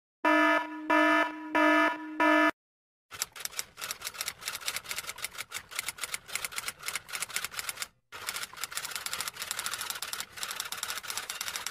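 About four short electronic beeps, then rapid key-typing clicks that run for about eight seconds with a brief break partway through: a typing sound effect.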